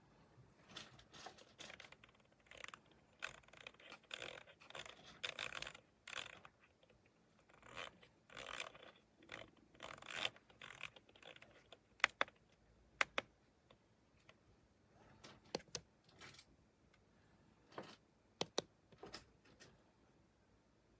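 Hands handling an object close by: rustling and scraping, then a scatter of sharp clicks, several of them in quick pairs.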